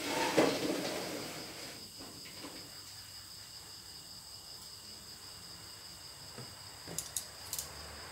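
Crickets chirping in a steady high trill, with a brief noise of someone moving about at the start and a few sharp clicks near the end.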